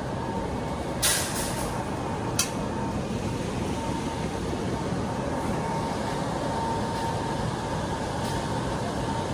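Steady background noise of a large store, with a faint steady tone. Two brief sharp rustles, about one and two and a half seconds in, come from the phone being handled.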